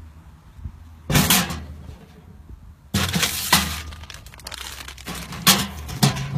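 Mailbox being opened and a plastic mailer package being pulled out and handled: several loud bursts of clattering and crinkling noise, the first about a second in and a longer one from about three seconds in.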